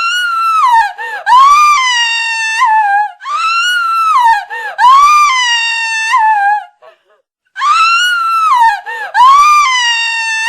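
A woman screaming in terror: a run of long, very high-pitched screams, each rising and then sliding down in pitch, with short breaks between them and one silent pause of about a second in the middle.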